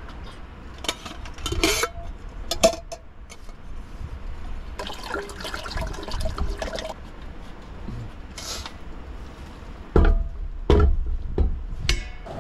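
Water poured from a stainless steel insulated jug into a metal camping cook pot, a steady rush lasting about two seconds midway. Before it come a few clicks and clanks as the jug lid is handled, and near the end several loud knocks as the jug and pot are handled and set down.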